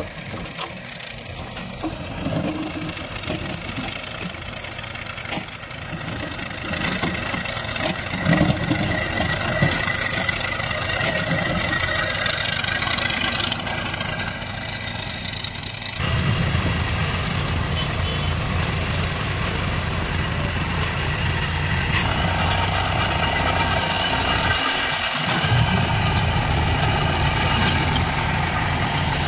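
Engines of worksite machinery running. The sound changes abruptly at edits partway through, and a steady, louder low engine note fills the second half.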